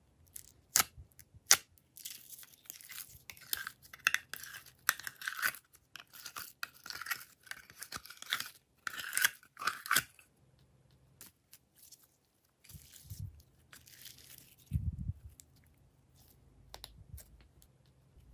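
Slime being poked and squeezed by fingers in its tray: a couple of sharp clicks, then about eight seconds of dense crackling, squelching pops. Soft low thuds a few seconds later as the blob of slime is set down in a dish.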